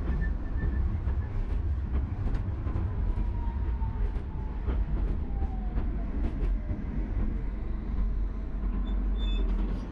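Tram running along street track: a steady low rumble with scattered clicks of the wheels over the rails. A faint whine falls slowly in pitch about halfway through.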